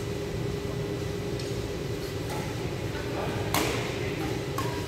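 Badminton rackets striking a shuttlecock: sharp smacks, the loudest about three and a half seconds in and a lighter one about a second later, echoing in a large sports hall over a steady low hum.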